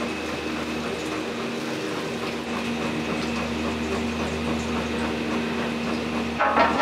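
Steady mechanical hum of kitchen equipment with scattered light clicks and knocks, and a brief louder clatter near the end.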